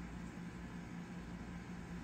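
Room tone: a steady low hiss with a faint constant hum and no distinct handling sounds.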